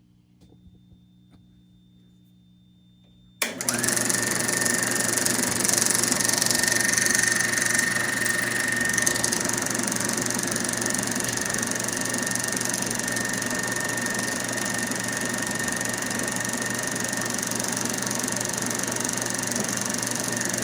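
1940s RCA 16mm sound projector starting up: after a faint hum, its motor and film mechanism cut in suddenly about three and a half seconds in and run steadily with a high whine, the forward drive turned by a replacement spring belt.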